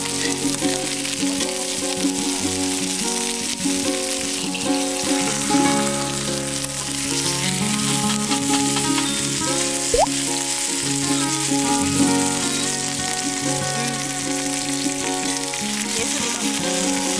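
Steak, asparagus, garlic and mushrooms sizzling steadily in hot oil in a cast iron skillet as they are seared and turned with tongs, with background music.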